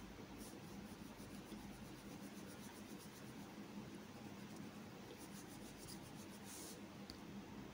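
Near silence: low room tone with faint scratching of a stylus on a tablet screen.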